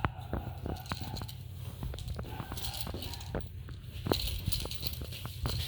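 Irregular light clicks and taps of kittens scampering and batting at a bird toy, over a steady low hum.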